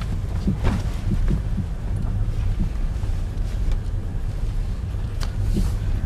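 Car interior while driving slowly over an unpaved gravel yard: a steady low rumble of engine and tyres, with a few short sharp clicks and knocks from stones and bumps.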